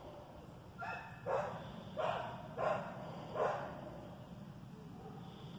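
A dog barking, about five short barks in the first three and a half seconds, with more barks just after, over a steady low hum.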